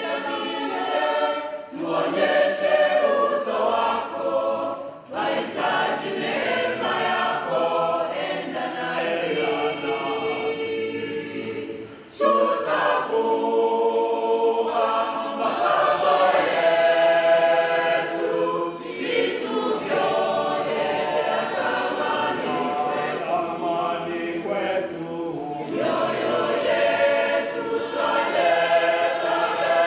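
Mixed choir of women and men singing together without instruments, with a short break about twelve seconds in before the voices come back in together.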